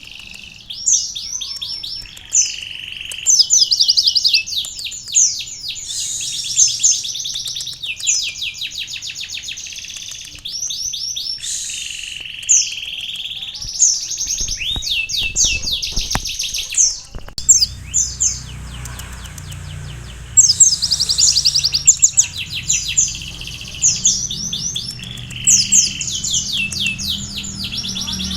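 A konin sunbird (Indonesian 'kolibri') singing steadily in rapid trills and rolling phrases, with canary-style song worked into them as learned fill-ins.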